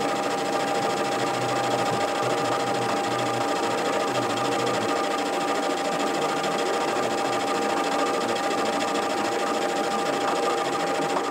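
Metal lathe running under load, a carbide-insert tool taking an interrupted cut along a connecting-rod blank and breaking the chips. A steady whine with a constant high tone over the noise of the cut.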